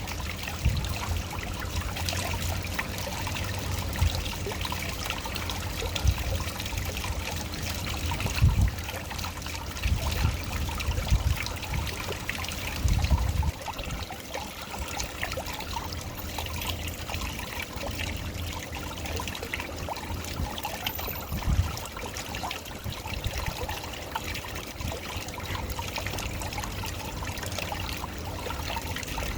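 Waterfall: water splashing and trickling steadily, with irregular low rumbles through the first half or so.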